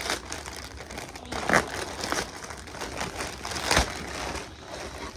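White plastic poly mailer bag crinkling and rustling as it is pulled open by hand, with two sharper crackles, about a second and a half in and again near four seconds.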